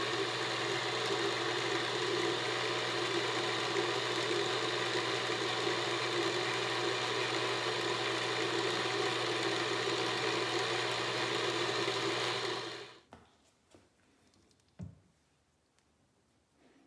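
Emco bench milling machine's spindle motor and gearing running at a steady speed, then switched off about thirteen seconds in. A few faint clicks and one light knock follow.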